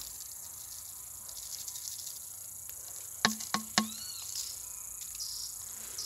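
A steady high-pitched insect chorus. Just after three seconds in come three quick sharp clicks, followed by a short arching bird chirp.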